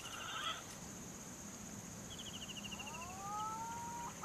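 Steady high-pitched insect drone in the background, with a short rapid trill of ticks about two seconds in and a rising whistled call near the end.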